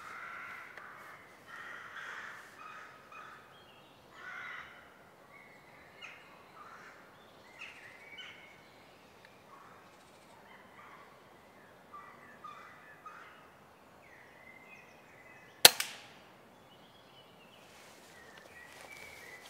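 Birds calling intermittently, then about three-quarters of the way in a single sharp crack: a Daystate Wolverine R pre-charged air rifle firing.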